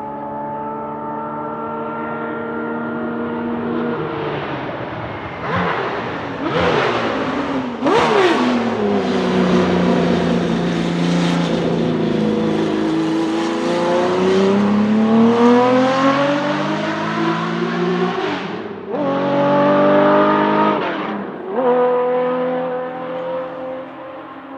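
1970 Porsche 917K's flat-12 racing engine approaching, then blipping the throttle sharply on three downshifts. It runs low through the corner and climbs in pitch as it accelerates away, with two upshifts near the end before fading.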